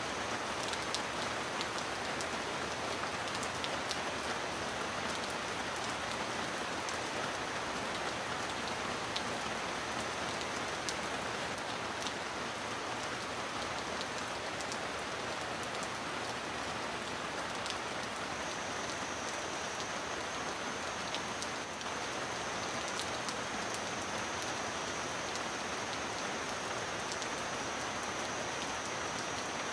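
Steady heavy rain: a dense, even hiss of falling rain with scattered sharp drop clicks.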